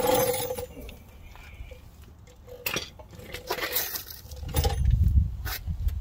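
Metal hand tools clinking and clattering as they are handled, a few separate sharp clinks, with a dull low rumble about a second before the end.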